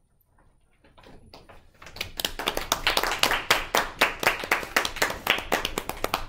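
Audience applauding: a few scattered claps about a second in, building by two seconds into steady, dense clapping.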